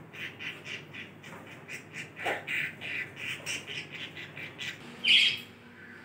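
Budgerigar chattering in a quick run of short chirps, about four or five a second, then one loud harsh squawk about five seconds in.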